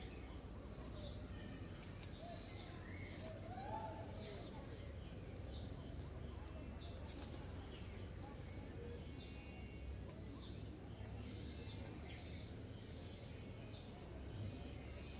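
Steady high-pitched insect chorus, like crickets, over a low rumble, with a few faint animal calls about three to four seconds in.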